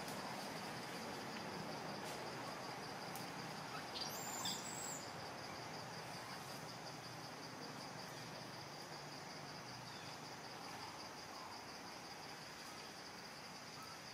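Insects droning in a continuous high, faintly pulsing buzz over a soft outdoor hiss, with a short high chirp about four seconds in.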